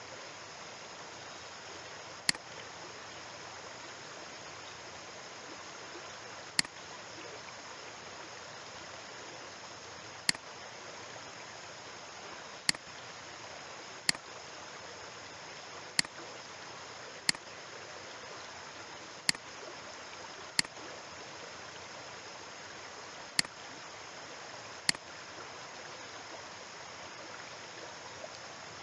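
Eleven sharp computer-mouse clicks, irregularly spaced one to four seconds apart, over a steady hiss.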